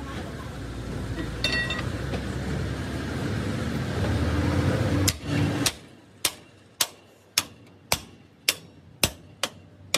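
A machine running with a dense mechanical noise that cuts off about five seconds in, followed by a hammer striking metal in a steady rhythm, about two blows a second, each with a short ring.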